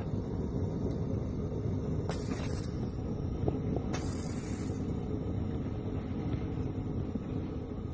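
Wood fire in a Russian samovar burning hard with a stovepipe set on top for draft, working like a rocket stove: a steady low rumble of the fire drawing, with two sharp crackles about two and four seconds in.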